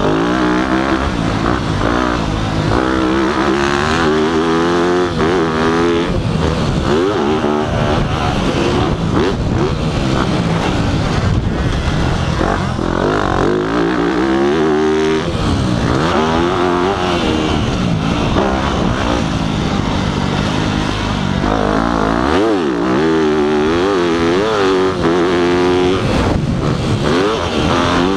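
Yamaha dirt bike engine under hard riding, its pitch climbing and dropping again and again as the rider opens and closes the throttle and shifts gears.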